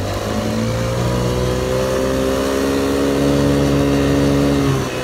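1987 ATV's engine pulling away under throttle. Its pitch climbs steadily for about three seconds and levels off, then falls sharply near the end.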